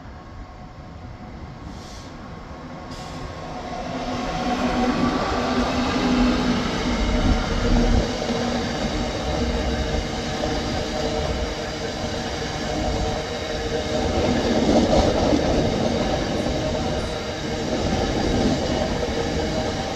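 A Class 66 diesel freight locomotive, an EMD two-stroke V12, draws near and passes, growing loud over the first five seconds. It is followed by a long train of biomass hopper wagons rolling by close, their wheels rumbling steadily on the rails.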